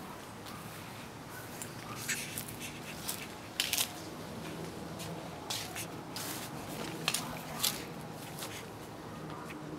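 Faint outdoor ambience picked up by a camera's built-in microphone: a low steady hum with scattered short rustles and clicks.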